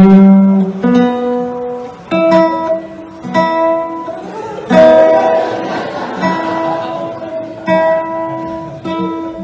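Acoustic guitar strummed slowly, seven separate strokes, each left to ring out, with one long ringing stretch in the middle.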